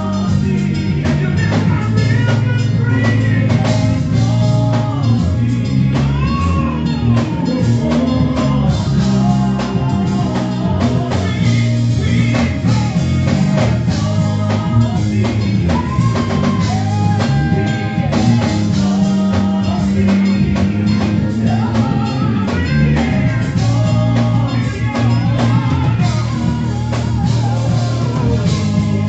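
Gospel praise song: a singer's voice over a band with drum kit and guitar, playing continuously.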